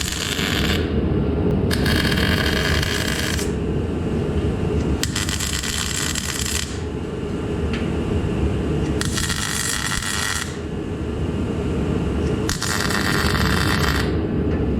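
Small welder laying a series of short welds on sheet steel: about five crackling runs of one to two seconds each, with short pauses between them. A steady low rumble runs underneath.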